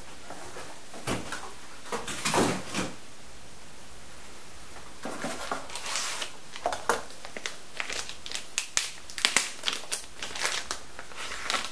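Cardboard packaging being handled, then a plastic bag crinkling in a run of short crackles as a laptop battery is pulled out of it over the second half.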